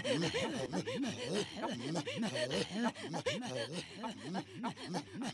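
Two Inuit women throat singing (katajjaq) face to face: a fast, even rhythm of short pitched grunting sounds, about three or four a second, each rising and falling in pitch.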